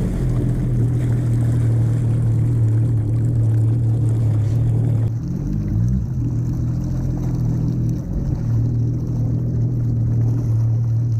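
Jet ski engine running steadily while towing a kayak, with a brief dip and recovery in engine speed about five to six seconds in.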